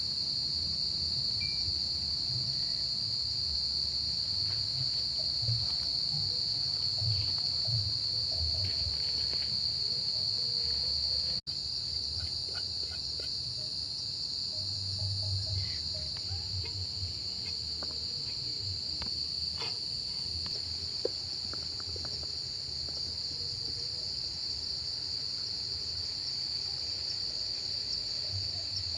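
Chorus of night insects, a steady high-pitched trilling that runs without a break, over a low uneven rumble. The sound drops out for an instant about eleven seconds in.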